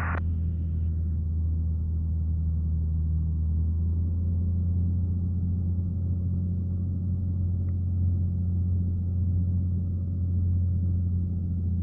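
Cessna 182's piston engine droning steadily in the cabin, a low even hum with no change in power; it cuts off abruptly at the very end.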